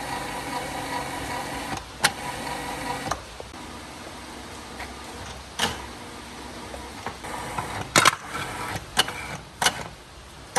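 The restored 3-phase electric cable winch's motor running with a steady hum, then stopping about three seconds in. A handful of sharp clicks and knocks follow, a few seconds apart.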